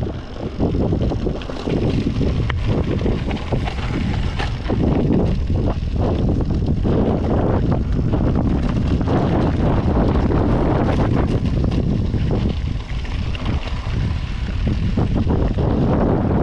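Wind buffeting the microphone of a camera riding on a Yeti SB5 mountain bike at speed, a steady low rumble, with tyres on a dirt trail and frequent short knocks and rattles from the bike over bumps.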